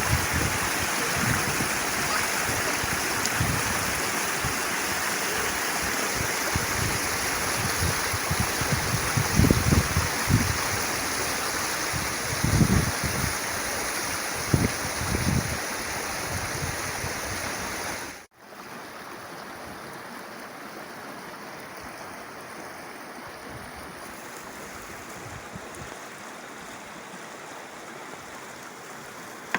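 Steady rush of flowing water with wind buffeting the microphone in low gusts; about eighteen seconds in the sound cuts to a quieter, steadier rush.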